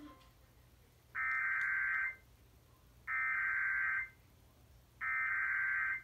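Emergency Alert System SAME header: three identical one-second bursts of screechy digital data tones, about a second apart, heard through a television speaker. The header encodes a civil emergency message alert.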